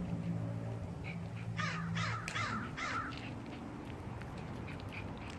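Crow cawing four times in quick succession, about halfway through, over a low steady hum that fades out at the same time.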